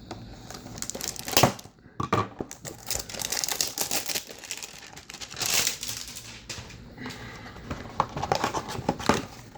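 Plastic wrapping on a box of trading cards crinkling and tearing as it is unwrapped by hand, in irregular crackles, with a sharp louder rip about a second and a half in.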